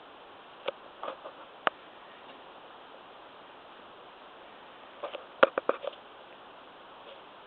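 Sharp knocks and clicks from handling the small rear backhoe attachment on the tractor's three-point hitch: a few scattered ones in the first two seconds, then a quick run of about five about five seconds in. A steady hiss lies under them.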